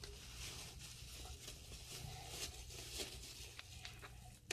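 Faint scraping and rustling, with soft irregular clicks, as a plastic measuring spoon works slime in a plastic zip bag.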